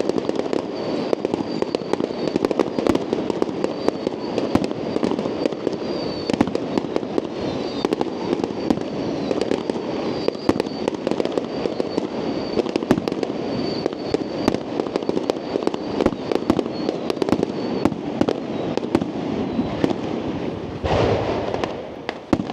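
Fireworks display: a rapid, unbroken barrage of bangs and crackling bursts. Near the end a louder rushing swell builds up.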